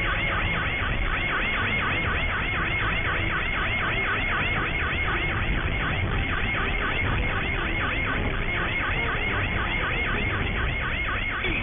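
Police siren in fast yelp mode, a rising wail repeating about four times a second without a break, over steady engine and road noise.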